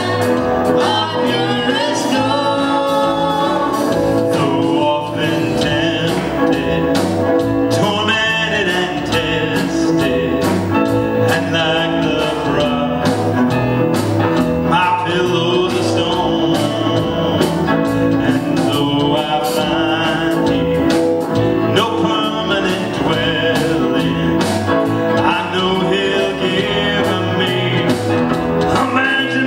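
Live band performing an old gospel hymn: singing over acoustic guitar and band accompaniment.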